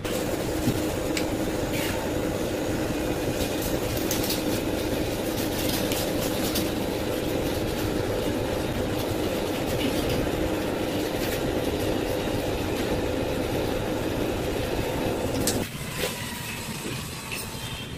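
Steady mechanical drone with a low hum and scattered clicks, cutting off abruptly about two seconds before the end.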